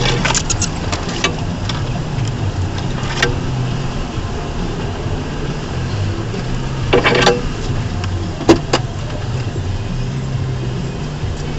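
A 2004 Ford Ranger's 4.0-litre V6 running at low revs on a rough trail, with sharp knocks and rattles from the truck's body and suspension, loudest around two thirds of the way through.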